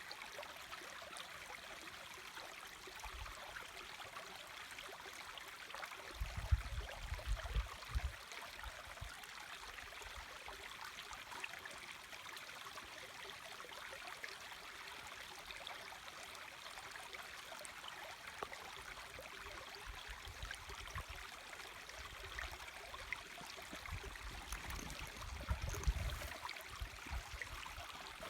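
A small moorland brook babbling over stones: a steady rushing and splashing of water. Two spells of low rumbling come in about six seconds in and again near the end.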